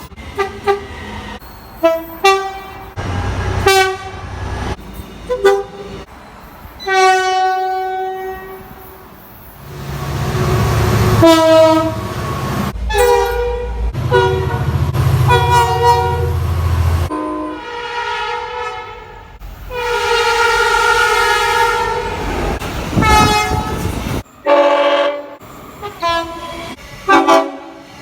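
A series of locomotive air horn blasts from several different trains, cut one after another: short toots and longer sustained chords of several notes. Under some of the longer blasts a passing train rumbles low.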